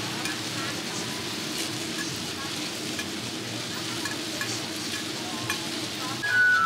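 Pan-fried buns sizzling in oil in a wide flat pan: a steady frying hiss with scattered light clicks. Music with a held high note comes in near the end.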